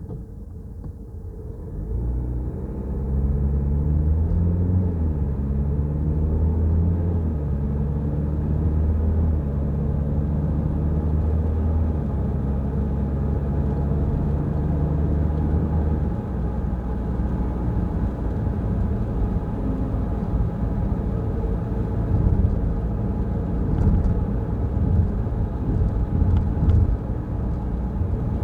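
Peugeot Rifter accelerating through the gears, its engine note climbing and dropping back with each shift, then settling into a steady low rumble of engine and road noise at cruising speed.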